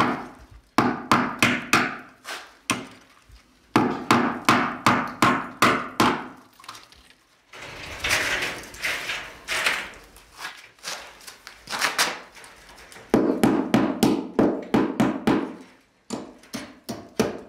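Hammer driving small nails to pin wire mesh lath onto a timber beam in a brick wall: runs of quick taps, about four a second, broken by pauses.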